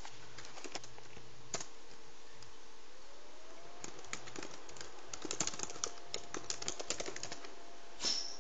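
Irregular light clicking of keys being typed on a laptop keyboard, a few scattered taps then a quicker run in the middle, with a short high-pitched squeak near the end.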